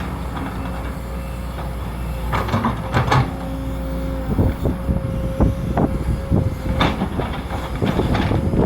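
Sumitomo SH210 excavator working: the diesel engine runs steadily under a held high whine, and sharp clanks and knocks come one after another from about two seconds in.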